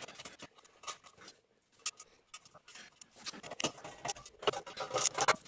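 Light, scattered knocks, clicks and scrapes as a scroll saw's metal side cover is handled and seated on the housing. In the second half a hex key turns one of the cover's bolts, and the clicks come closer together.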